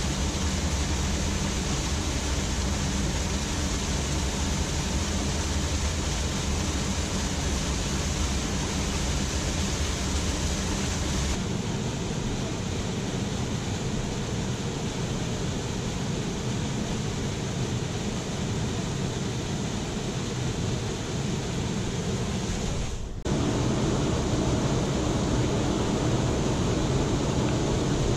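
Waterfall pouring over a rock ledge into a pool, a steady rush of falling water. The sound drops abruptly about a third of the way in and jumps back up louder near the end.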